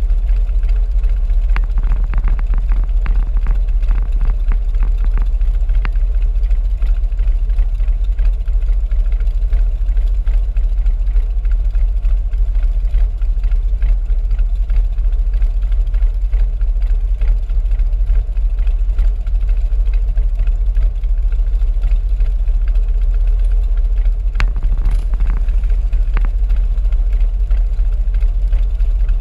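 Several cruiser motorcycles idling together, a steady deep engine sound, with a scatter of light clicks a couple of seconds in and again near the end.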